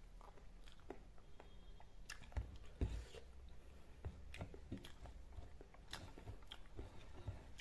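A person chewing a mouthful of rice and chicken curry eaten by hand, with irregular soft mouth clicks and a duller thump a little under three seconds in.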